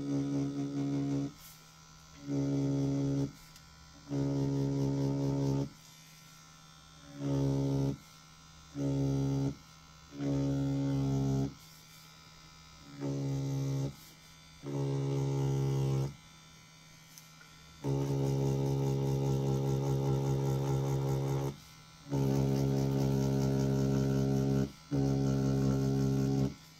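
Pen-style rotary tattoo machine buzzing with a steady hum in about eleven on-and-off bursts, some under a second and one about four seconds long, as its needle works shading into synthetic practice skin.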